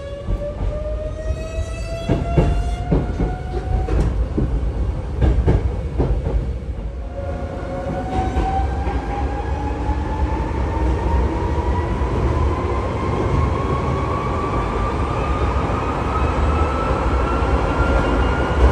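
Cabin sound of a Nose Electric Railway 1700-series electric train accelerating: the traction motors whine, rising in pitch over a steady low rumble, with wheels clacking over rail joints. About four seconds in the whine fades for a few seconds, then a new whine starts and climbs steadily as the train accelerates again.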